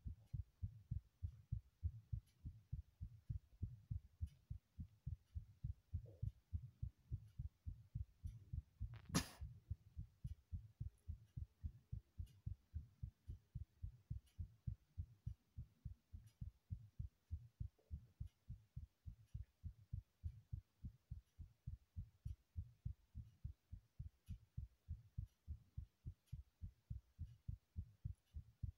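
Heartbeat: a steady, even rhythm of soft low thumps. A single sharp click cuts in about nine seconds in.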